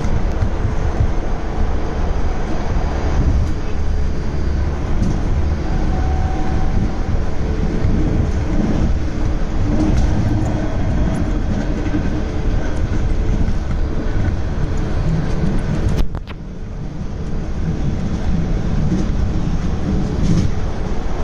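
Baltimore Metro Subway train running at speed, heard from inside the car: a steady rumble of wheels on rail with light clicks. About three-quarters of the way through there is a sharp click, after which the noise briefly drops and then builds again.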